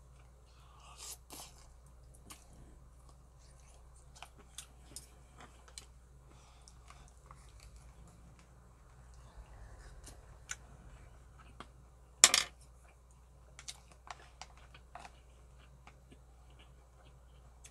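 Eating sounds: chewing and scattered light clicks of wooden chopsticks against a stainless steel pot, with one much louder, brief noise about twelve seconds in.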